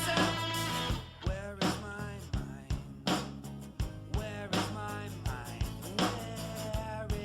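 Background rock music with a steady drum-kit beat, about two hits a second.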